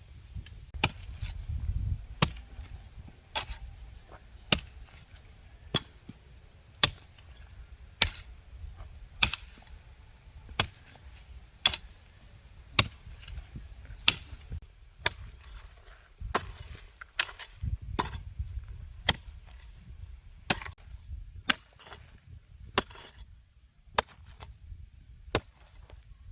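A hand tool chopping at a steady pace, one sharp strike roughly every second, about twenty strikes in all.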